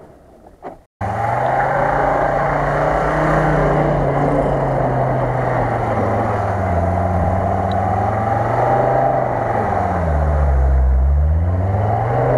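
UAZ-469 off-roader's engine revving hard while drifting in circles on snow. It starts abruptly about a second in, and its pitch rises and falls with the throttle, dropping low near the end before climbing again.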